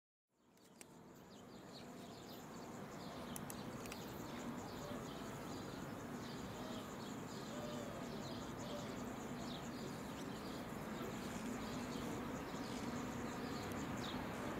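Quiet outdoor ambience beside a railway line, fading up from silence in the first second or two: short high chirps repeating about twice a second over a steady low hum.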